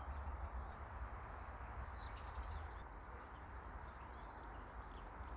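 Faint ambience: a low steady rumble on the microphone, with a few faint bird chirps about two seconds in.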